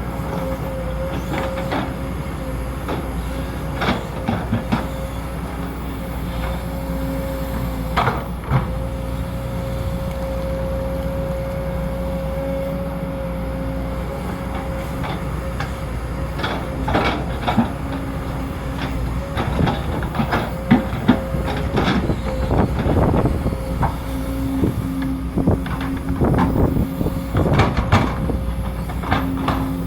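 Sumitomo SH210 hydraulic excavator running steadily with a constant hydraulic whine over the diesel engine, while its bucket digs: scattered metallic clanks and scrapes, coming thick and fast in the second half.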